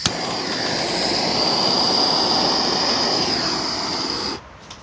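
Gas torch flame hissing steadily as it heats a metal egg for heat colouring, with a sharp click at the start; the flame shuts off suddenly near the end.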